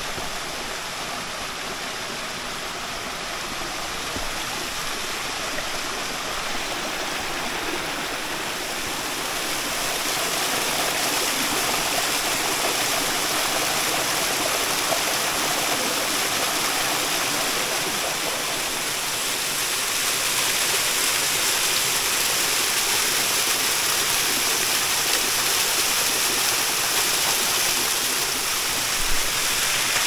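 A small waterfall pouring down a rock face and splashing over the rocks of its stream: a steady rush of water that grows louder about ten seconds in and again about twenty seconds in as it is approached.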